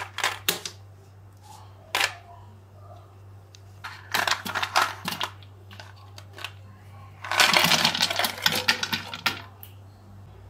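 Ice cubes clinking and clattering as they are grabbed by hand and dropped into a hollowed-out watermelon: a few short clicks at first, a cluster about four seconds in, and a longer clatter near the end. A steady low hum runs underneath.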